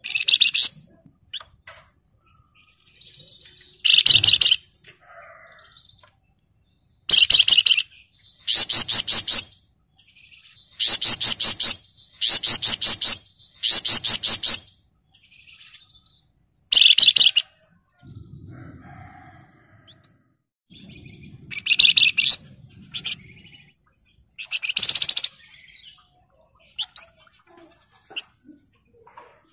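Javan fulvetta (flamboyan / wergan Jawa) singing in rapid, dense, drill-like trills, about a dozen short bursts of high chatter, each under a second or so, with pauses between.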